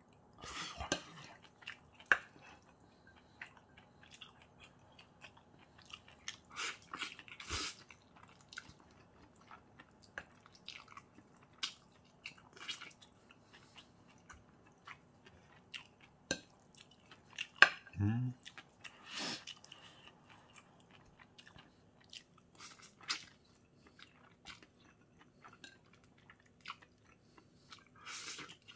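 A person eating spicy fried noodles close to the microphone: irregular chewing and slurping with scattered short clicks, and one short voiced sound a little past halfway.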